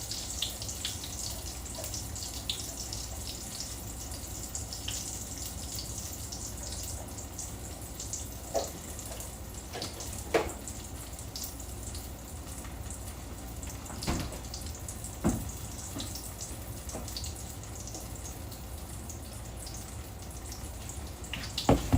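Corn dogs deep-frying in hot oil: a steady sizzle, with a few light knocks in the middle.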